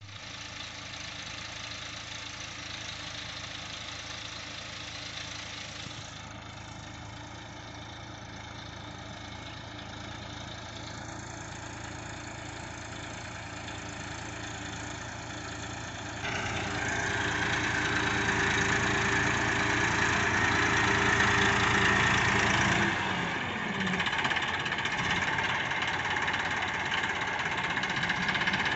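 Massey Ferguson 241 tractor's three-cylinder diesel engine running steadily while it pulls a tine cultivator through the soil between sugarcane rows. It grows clearly louder about halfway through as the tractor comes close.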